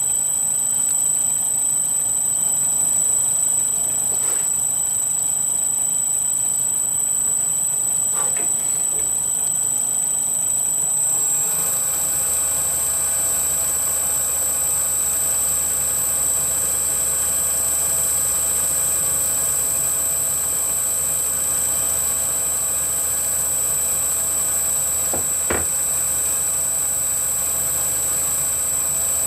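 Wood lathe with a steady high-pitched whine; about eleven seconds in its motor starts the spindle turning and a low hum joins the whine. A few faint clicks.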